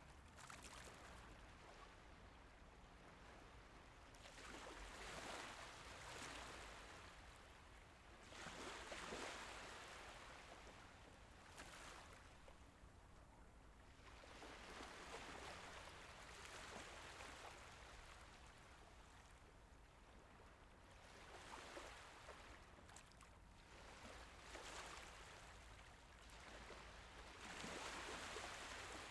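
Faint, gentle Mediterranean Sea waves, a soft wash of water that swells and fades every three to four seconds.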